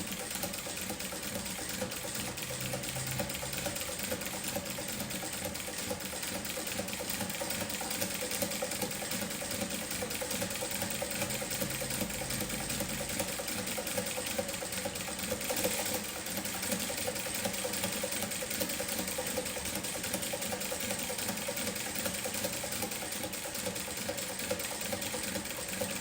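Industrial sewing machine fitted with a zigzag attachment, running steadily while sewing a zigzag stitch, with a fast, even needle rhythm and a steady motor tone. It stops near the end.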